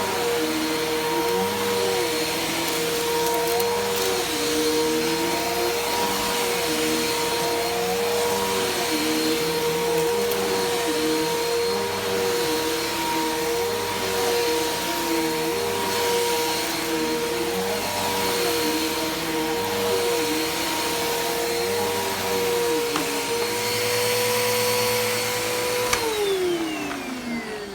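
Bissell PowerForce Helix Turbo upright vacuum cleaner running with a steady high motor whine, under a lower tone that wavers in a regular rhythm about every second and a half. Near the end it is switched off, and the whine falls in pitch as the motor spins down.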